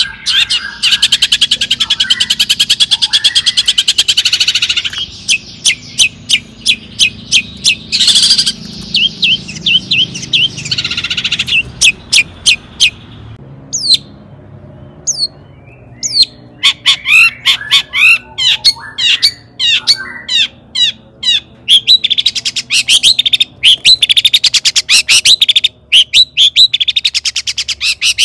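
Long-tailed shrike (cendet) singing: fast runs of sharp, repeated chattering notes and rapid trills, thinning out to a few scattered notes about halfway through before the dense chatter resumes.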